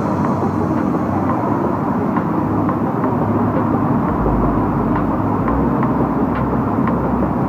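Steady road-traffic noise from cars driving past, with a deeper rumble joining about four seconds in as a car passes close by.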